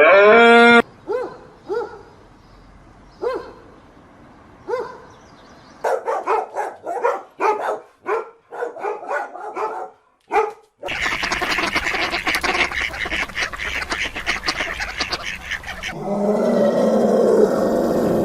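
Farm animal calls in separate clips one after another: a few short single calls, then a run of quick repeated calls from about six seconds, then a dense chorus of many animals calling at once from about eleven seconds.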